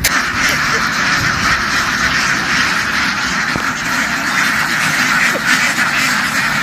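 A large flock of domestic ducks quacking all at once, many calls overlapping into one loud, continuous clamour.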